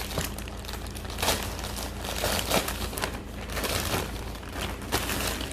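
Parcel packaging crinkling and rustling in irregular handfuls as it is handled and opened.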